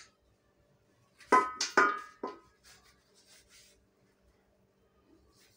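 Metal kitchenware clinking: three sharp knocks about half a second apart, each with a brief metallic ringing.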